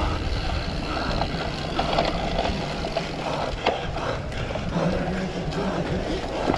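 Cyclocross bike ridden over rough ground: wind buffeting the microphone, with the tyres and frame rattling and scattered knocks, one sharper than the rest about three and a half seconds in.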